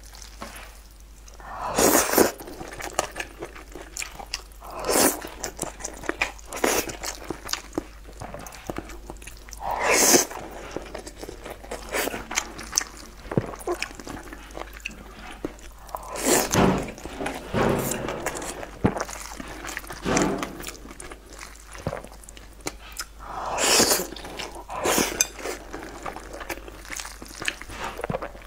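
Close-miked chewing and biting of soft, saucy food, with short, louder wet mouth sounds every few seconds.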